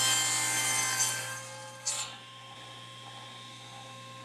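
Table saw blade cutting through a 2x4 block on a crosscut sled, the cut ending about a second in, with a brief sawing sound near two seconds. After that the saw runs on freely with a steady hum.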